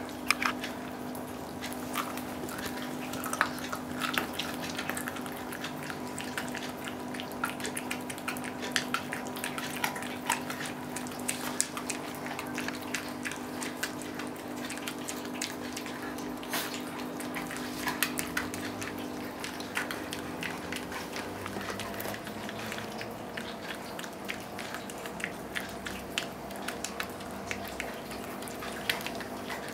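Dogs and a cat gnawing and chewing raw oxtail bones: irregular wet crunching and clicking of teeth on bone and meat, over a steady hum.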